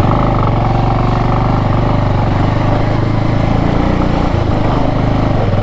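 Motorcycle engine running steadily with an even, fast pulse.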